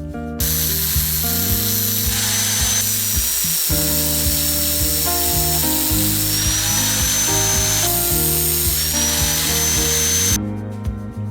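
Electric power tool motor running steadily for about ten seconds, a high whine over a loud hiss of metal or cutting noise, over background music. It starts about half a second in and stops shortly before the end.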